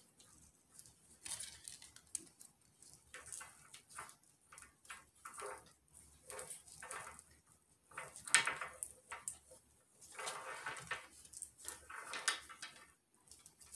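Scissors snipping and working at the joints of a wooden chain, with irregular clicks and small clacks as the wooden links are cut and knock together in the hands. The scissors struggle to cut through the links.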